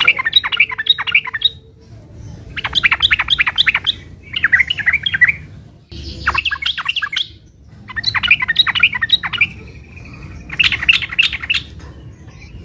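Yellow-vented bulbul (trucukan) singing loud, rapid chattering phrases: about six quick bursts of notes, each a second or so long, with short pauses between.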